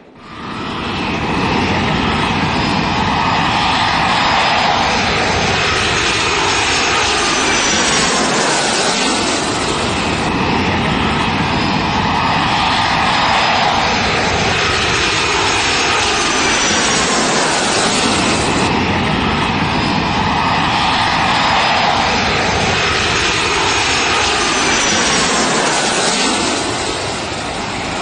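Jet airliner engines running, a loud steady noise with a whine that glides in pitch about every eight or nine seconds.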